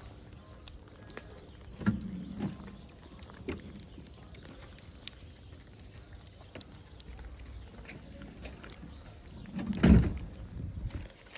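Stray cats eating wet cat food from a plastic tray: soft chewing and smacking with many small clicks. A knock and rustle come about two seconds in, and a louder thump and rustle near the end.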